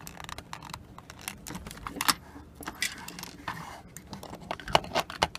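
Irregular small clicks, taps and rattles of an alarm clock's metal parts and hand tools as a stuck gear is worked at to pull it free.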